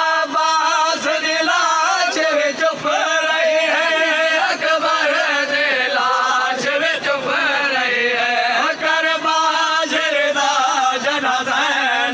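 A group of men's voices chanting a noha, a Shia mourning lament, together in chorus, loud and unbroken.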